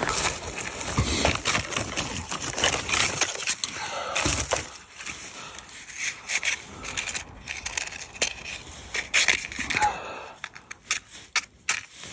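Dry twigs being handled for fire kindling: irregular snapping, crackling and rustling as thin dead branches are broken and piled, thick in the first few seconds and thinning to scattered clicks later.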